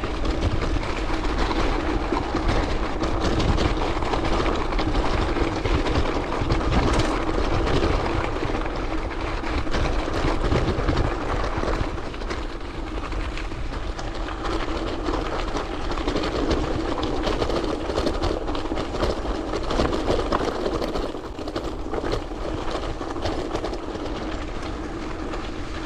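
Salsa Journeyman gravel bike riding over rough gravel: tyres crunching and the bike rattling in a steady stream of small clicks, over a continuous low rumble.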